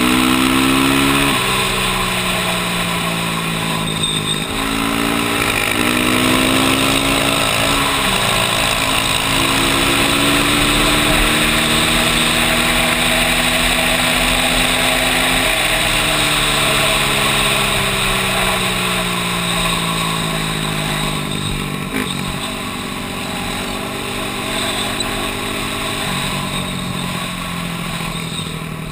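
ATV engine at speed, its pitch climbing and then dropping several times as it shifts up or eases off, over steady wind rush on the microphone. The engine fades near the end.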